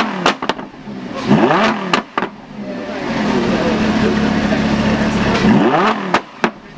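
Lamborghini Huracán's V10 exhaust as the engine is blipped three times: quick revs that rise and fall right at the start, about a second and a half in, and near the end, settling to a steady idle in between. A few sharp cracks follow as the revs drop.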